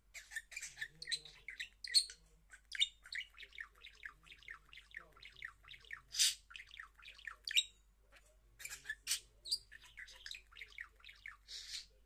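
Budgerigar chattering in a rapid, unbroken run of short chirps and clicks, with a few louder squawky calls mixed in, the loudest about six seconds in.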